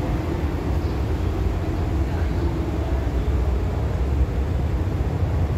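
Steady low rumble of an idling minibus engine.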